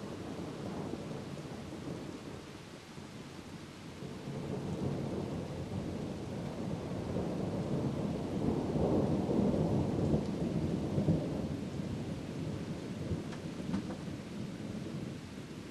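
Rolling thunder from a nearby lightning flash: a deep rumble that swells about four seconds in, is loudest around the middle and slowly dies away, over steady rain.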